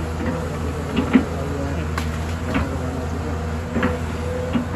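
Hyundai crawler excavator's diesel engine running steadily under working load, with a few short knocks and scrapes as the bucket cuts into an earth bank.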